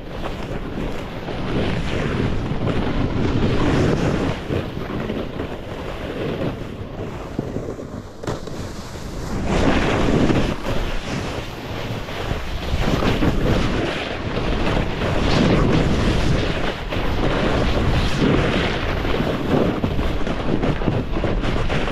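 Wind buffeting the microphone while snowboarding downhill, mixed with the scraping hiss of the board's edge across chopped snow. The noise swells and fades with the turns and grows louder about halfway through.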